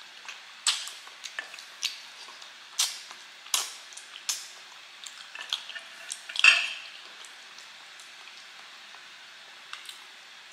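Close-miked eating sounds of braised pig feet eaten by hand: a string of sharp, wet mouth smacks and sucks over the first seven seconds. About six and a half seconds in comes a louder, briefly ringing clink of a metal spoon against the plate, then only a couple of small clicks near the end.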